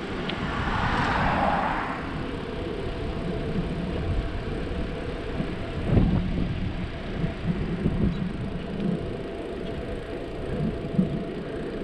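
Low, uneven rumble of wind on the microphone and bicycle tyres rolling on asphalt while cycling, with a car passing on the adjacent road in the first two seconds and a single bump about six seconds in.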